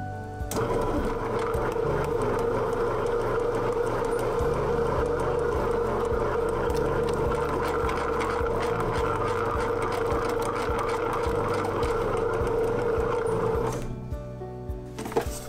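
Electric bread machine's motor whirring steadily as its paddle mixes and kneads bread dough, starting about half a second in and stopping near the end, over background music with a steady beat.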